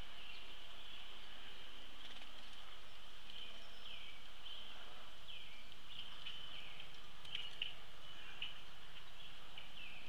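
Outdoor birdsong: many short down-slurred bird chirps repeating every half second to a second over a steady high hum, with a few sharp taps past the middle.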